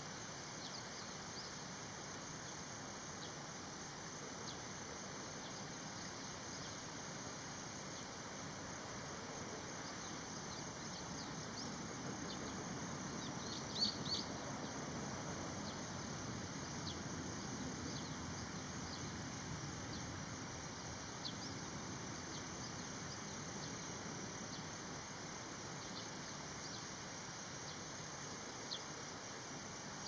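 Outdoor natural ambience: a steady high hiss with scattered faint bird chirps, and a couple of short, louder chirps about fourteen seconds in.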